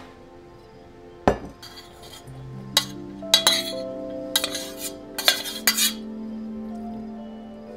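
A metal spoon scraping and clinking against a stainless steel pot as cooked rice is spooned out into a glass bowl, in a quick run of scrapes and taps. A sharp knock about a second in, with soft background music of held notes throughout.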